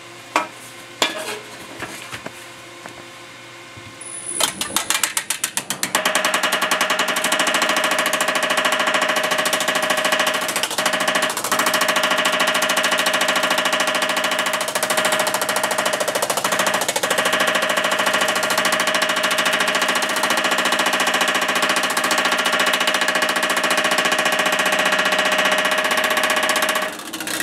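A few light knocks, then about four seconds in a power hammer starts up and quickly speeds up to a fast, steady hammering with a ringing note through it. The flat upper die and flat-spotted lower die are smoothing out shrinks in a piece of 18-gauge sheet metal.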